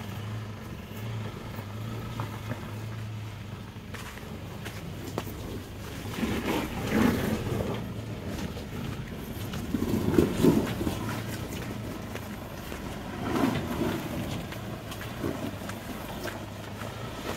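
Ford Ranger pickup's engine running at low revs as it crawls over a rocky, rutted dirt trail, with louder rough surges about six, ten and thirteen seconds in.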